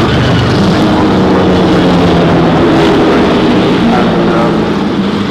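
Porsche 917's flat-12 racing engine running loud at high, fairly steady revs.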